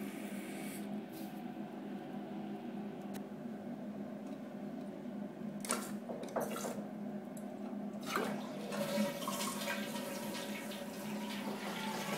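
Kohler toilet tank's fill valve running water into the tank, a steady hiss with a low hum. A few knocks and splashes about six seconds in as a hand handles the fill valve cap, and the water noise grows fuller after about eight seconds.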